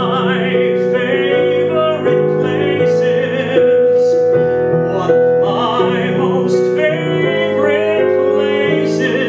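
A solo voice singing a show tune with vibrato, accompanied by piano.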